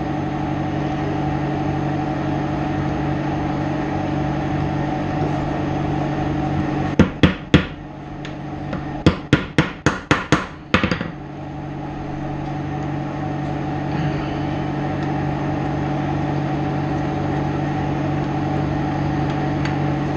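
Hammer blows driving a pin out of a mini grease gun: three sharp strikes about seven seconds in, then a quick run of about seven more, over a steady machine hum.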